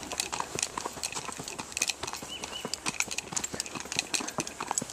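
A horse's hooves clip-clopping on a gravel trail as he is ridden: a run of irregular crunching steps.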